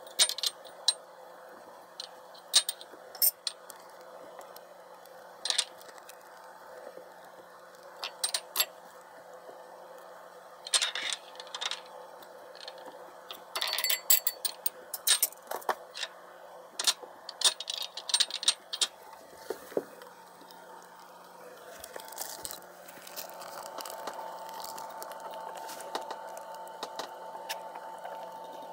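Kitchen clatter: scattered sharp clinks and knocks of dishes and utensils over a steady hum, which grows louder near the end.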